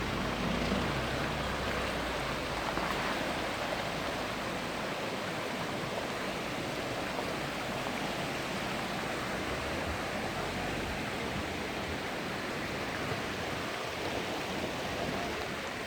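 Stream water flowing steadily, an even rushing noise without breaks.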